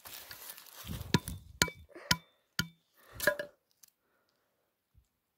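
An almond being cracked open on a flat stone: about five sharp knocks roughly half a second apart, some with a short ringing note.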